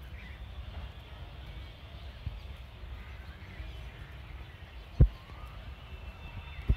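Park ambience: a low steady rumble with faint bird chirps, and two dull low thumps, one about five seconds in and one near the end.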